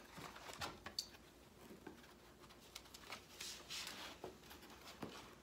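Faint rustling and soft taps of a cardboard presentation box being handled, its fold-out flaps and inner box touched and shifted, in scattered small clicks.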